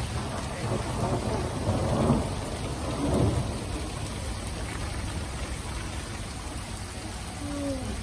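Steady rain falling, with a low rumble that swells twice, about two and three seconds in. A short falling tone comes near the end.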